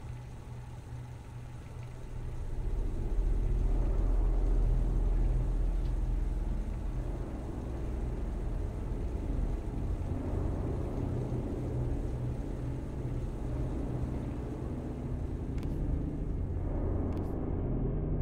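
A low, rumbling drone of horror-film underscore swells up about two seconds in and holds steady, with a few faint clicks near the end.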